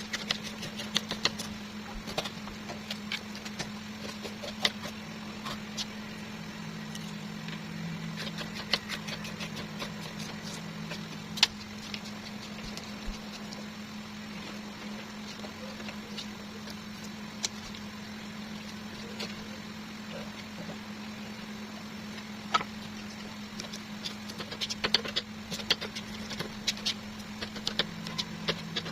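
Steady low hum with scattered sharp taps and clicks of kitchen work, coming thicker near the end.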